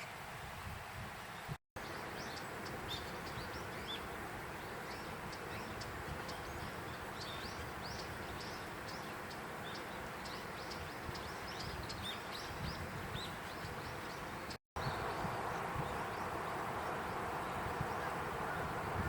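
Small birds chirping in short, repeated high calls over a steady rushing background. After a cut near the end the chirps stop and the rushing is louder.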